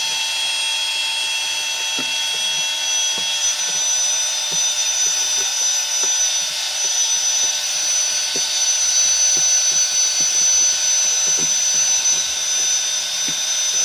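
High-speed handheld power tool running steadily with a high whine while trimming plastic.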